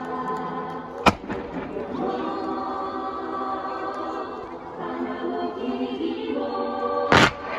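Choral music with sustained voices, broken by two firework bursts: a sharp crack about a second in and a louder bang near the end.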